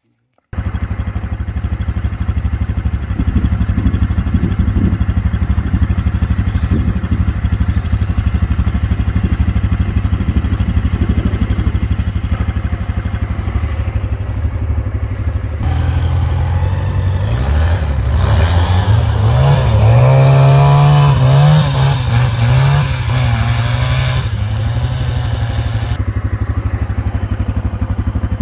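Quad-bike (ATV) engine running loudly with a steady rapid firing pulse. From about the middle for several seconds its pitch rises and falls repeatedly as it revs.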